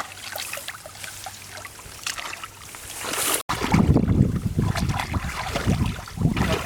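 Shallow muddy water sloshing and trickling, with scattered small splashes. After a sudden break about halfway, it turns louder and deeper, an irregular churning slosh.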